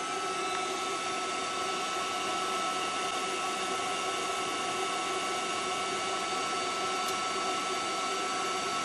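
Bolt Buster 1800-watt induction heater running, a steady high whine over an even rushing hiss, as its coil heats a rusted exhaust nut red hot to free it.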